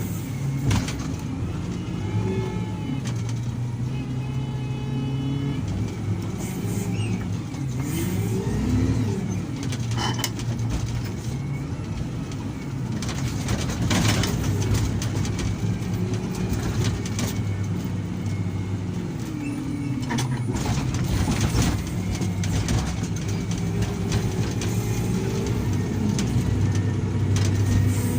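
SDLG wheel loader's diesel engine working under load, revving up and falling back again and again, with occasional sharp knocks.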